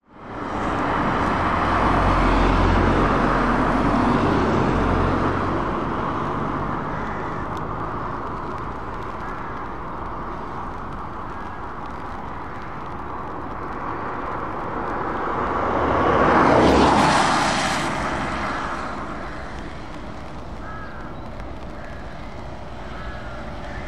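Road traffic on a wet road. A low engine rumble is loudest in the first few seconds. About two-thirds of the way through, a vehicle passes close, its noise rising and then falling away.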